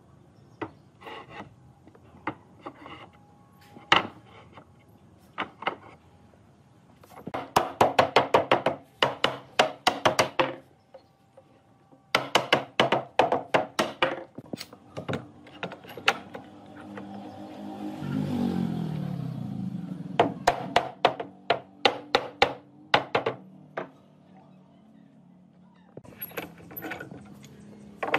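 A mallet tapping on a freshly glued pine board panel held in pipe clamps, in quick runs of several taps a second with a few single knocks between them, driving the boards flush during the glue-up. In the middle comes a drawn-out sound that falls in pitch.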